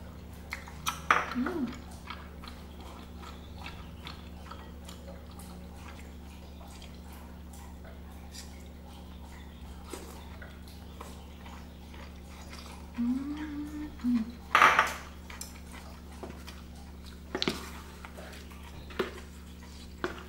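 Eating at the table: chopsticks clicking against a ceramic bowl, with a louder noisy burst about fifteen seconds in and a couple of short hummed "mm" sounds of the eater's voice, over a steady low hum.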